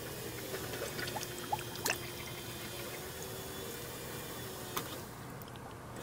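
Toyota Prius engine coolant gurgling and dripping in a filler funnel as trapped air bubbles out of the cooling system during bleeding. Two sharp drips stand out, about 2 seconds and 5 seconds in, over a faint steady hum.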